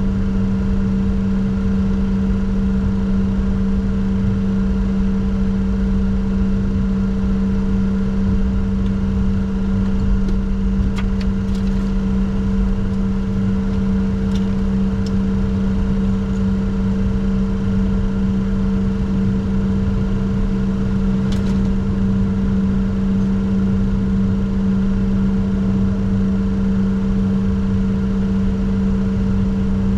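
Steady cockpit noise of a Bombardier Challenger 604 with its General Electric CF34 turbofan engines running: a constant low hum over an even rumble, unchanging in level, with a few faint clicks.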